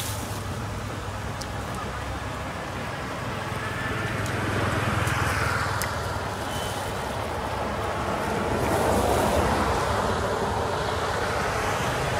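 Road traffic: a steady low engine hum under a rushing noise that swells about four seconds in and again around nine seconds, as vehicles pass.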